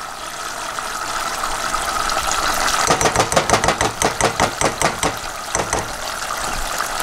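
Hoisin sauce and oil sizzling and bubbling in a saucepan on low heat, with peanut butter just spooned in. There is a stretch of quick clicks and pops in the middle.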